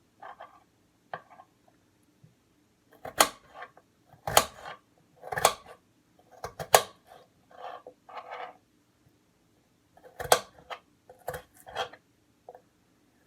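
Kitchen knife on a cutting board: a handful of sharp knocks, irregular and about a second apart, with quieter scraping and clatter of utensils between.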